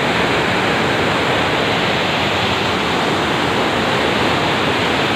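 Canal water rushing through a regulator's gates and churning into white water below, a loud, steady rush of water.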